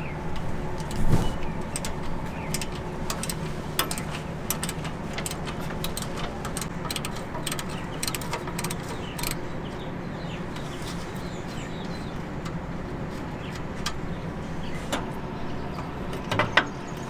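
Scattered metallic clicks, clinks and knocks of a wrench undoing the 13 mm bolts on an exhaust heat shield, with a louder knock about a second in and another near the end, over a steady low hum.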